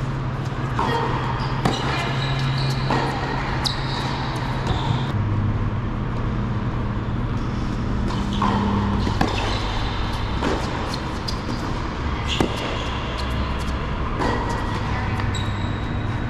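Tennis balls struck by racquets and bouncing on an indoor hard court during two rallies: sharp pops at irregular intervals, a few in the first few seconds and more in the middle. Underneath runs a steady bed of sustained low tones that shift pitch every few seconds.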